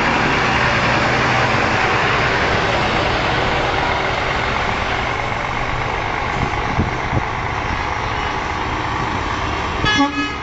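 Semi-truck tractor-trailers in a convoy driving past close by: a steady rumble of diesel engines and tyre noise that eases off slightly through the middle.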